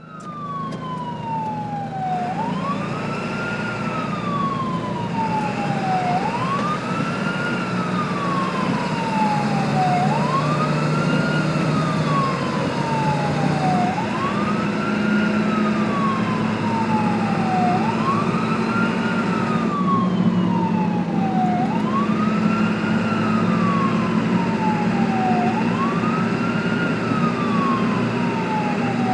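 Ambulance siren wailing in a repeating cycle. The tone falls slowly, then sweeps quickly back up, about once every four seconds. A steady low hum runs underneath, and it grows louder over the first few seconds.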